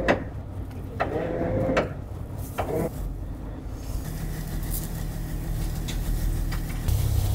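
A few sharp scissor snips as a bait strip is cut, in the first three seconds, over a boat engine running with a steady low hum that gets louder about seven seconds in.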